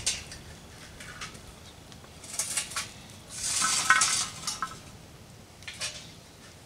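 Lit charcoal briquettes poured from a metal chimney starter onto a cast-iron Dutch oven lid. A few metal clinks come first, then a clattering rush of coals about three and a half seconds in, followed by a few more clinks.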